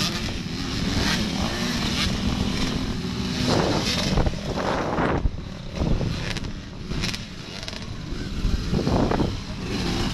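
Motocross dirt bike engines running and revving on the track. A steady engine tone for the first few seconds gives way to uneven revving.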